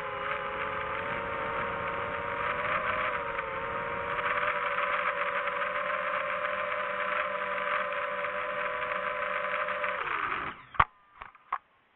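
A motor running steadily with a rattling sound. About ten seconds in it winds down and stops, followed by three sharp clicks.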